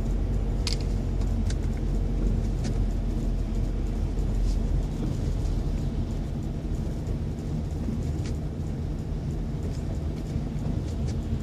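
Steady low rumble of a car driving on a wet road at low speed, engine and tyre noise heard from inside the cabin, with a few faint clicks.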